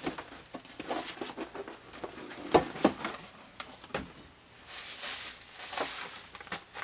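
A white cardboard box is handled and its lid lifted open, with a few sharp knocks of card. Near the end bubble wrap and plastic packing rustle as a hand digs into the box.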